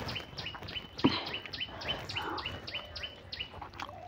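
A bird calling over and over, about four short chirps a second, each one sliding down into a brief held high note; the calling stops near the end. A single sharp click about a second in.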